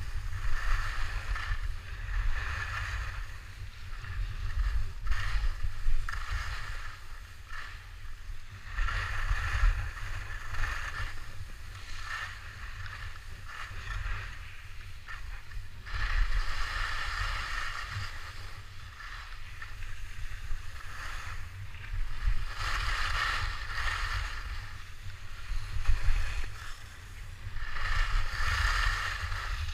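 Skis carving on packed snow: a scraping swish that swells and fades every few seconds with the turns, over a low rumble of wind on the microphone.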